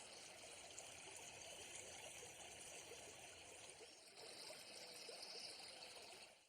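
Faint, steady trickling of a small stream, fading out near the end.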